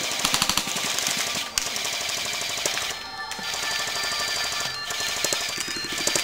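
Airsoft rifles firing in rapid automatic bursts: a fast, even clatter of clicks.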